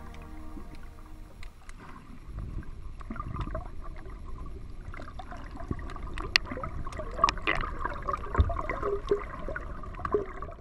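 Water sloshing and gurgling around a camera held just under the surface, with scattered sharp clicks and pops that grow busier in the second half.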